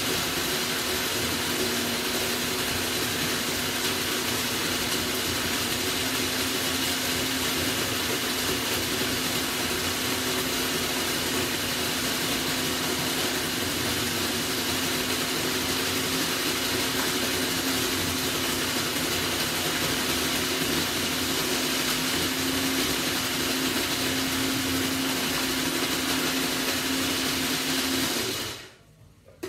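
Small electric ice-shaving machine running steadily with a constant motor hum and whine as it shaves ice. It stops for about a second near the end, then starts again.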